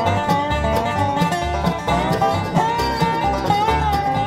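Background instrumental music in a country or bluegrass style: fast plucked strings over a bass line, with a sliding melody on top.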